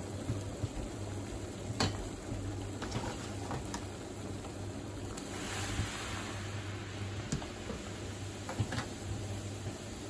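Pot of water at a rolling boil, bubbling steadily with a few sharp pops, over a constant low hum. A little past halfway a brief hissing surge rises as the water, dosed with baking soda, foams up white.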